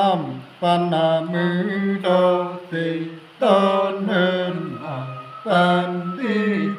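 Unaccompanied male singing in a chant-like folk style: long held notes in short phrases, each ending in a downward slide, with brief breaks between phrases.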